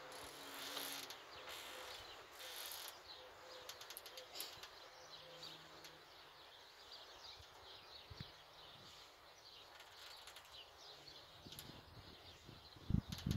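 Fighting bull eating from a trough: faint crackly munching and rustling of dry feed, many small ticks throughout. A louder low rushing sound starts near the end.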